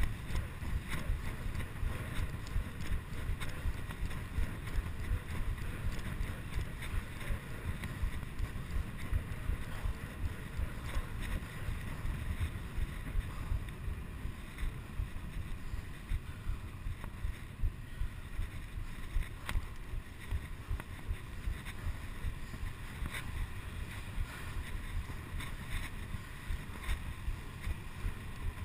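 Wind buffeting a chest-mounted GoPro HD2 on a bicycle at speed: a steady low rumble, with a few light clicks scattered through it.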